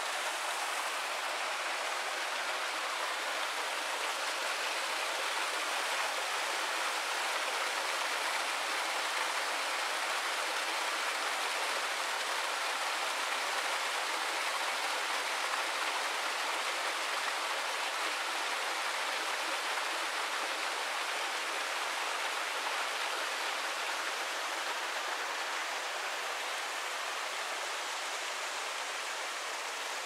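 Rushing water of a forest river, a steady, unbroken sound.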